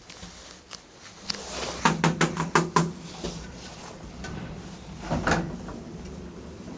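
A quick run of about six sharp knocks inside an elevator car, with a low ring under them, then one softer knock about three seconds later.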